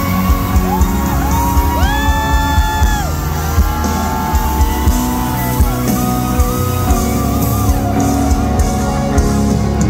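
Loud live concert music: sung vocals gliding between held notes over a steady beat, with shouts from the crowd.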